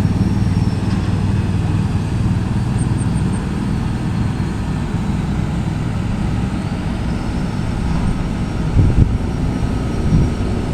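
Steady low rumble of motor vehicle traffic on a road, with an engine's drone fading in the first couple of seconds and two brief louder bumps near the end.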